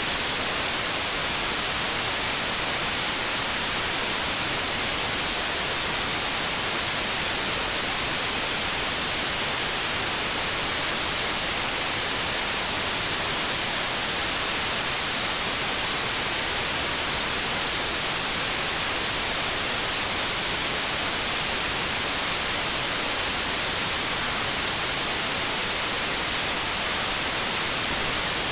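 Steady static hiss from an HDSDR software-defined radio demodulating wideband FM. Only noise comes through, with no station audio, although the station's carrier shows on the waterfall. The hiss is even throughout and strongest in the treble.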